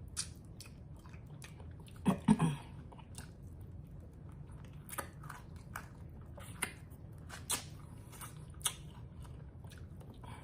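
Close-up chewing and biting of well-done fried chicken wings, with scattered short sharp crunches. There is one louder burst of sound about two seconds in.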